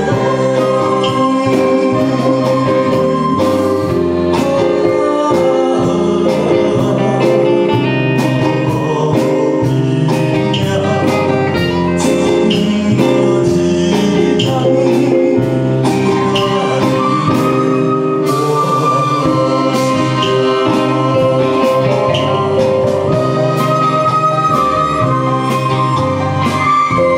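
A man singing into a microphone with a live orchestra accompanying him: flutes, cello and keyboards playing held, sustained chords.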